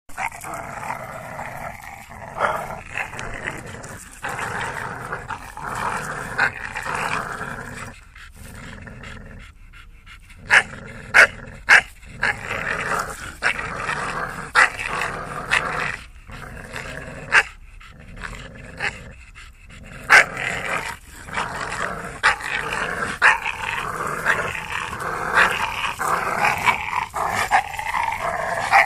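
A pit bull and an English bulldog growling in play as they tug against each other over a stick, a rough growl that comes and goes with short pauses. A few loud, sharp short sounds cut in about a third of the way through.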